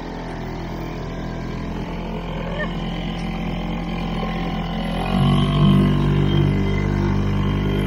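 Small outboard motor on a dinghy running steadily under way, getting louder about five seconds in as the throttle opens.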